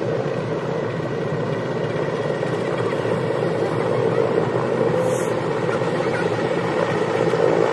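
Firefighting helicopter flying with a water bucket slung beneath it on a long line: a steady rotor and engine drone at an even level.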